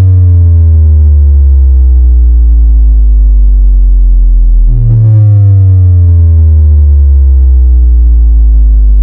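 Synthesized sub-bass kick for a subwoofer test: two long, loud, deep booms, each sliding slowly down in pitch, with the second hitting about halfway through.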